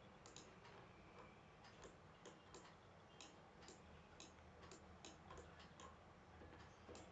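Near silence with about a dozen faint, sharp computer mouse clicks at irregular intervals.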